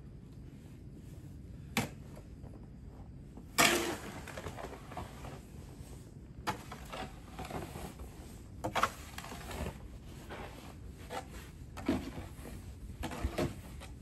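A series of separate scrapes, crunches and knocks of snow being shovelled and packed against a plastic drawer unit with a plastic snow shovel, the loudest about four seconds in.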